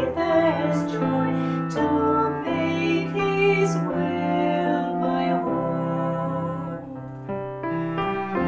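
Recorded hymn music: piano with sustained accompanying chords changing about once a second, in the passage between two sung verses.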